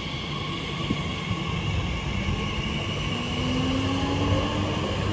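Elizabeth line Class 345 electric train moving along the platform with a steady rumble of wheels on rails. From about three seconds in, the traction motors' whine rises in pitch as the train gathers speed.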